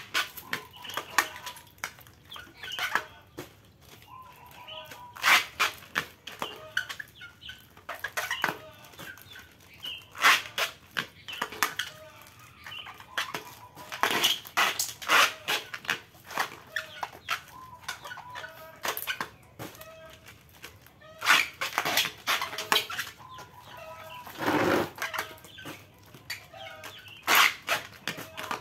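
Small clear plastic fish bags crinkling and rustling in short, sharp handfuls as they are handled and tied, with chickens clucking in the background.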